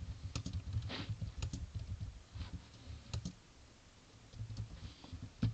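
Typing on a computer keyboard: quick, irregular key clicks, thinning out after about three seconds.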